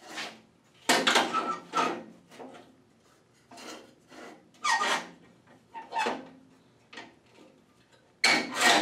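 Table saw rip fence being slid and set along its rail, with wood sliding on the saw table: a string of short scraping rubs, the loudest about a second in and near the end.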